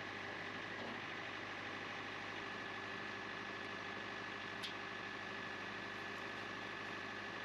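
John Deere 4066R compact tractor's diesel engine idling steadily, with a steady high tone over it. A single sharp click comes a little past halfway.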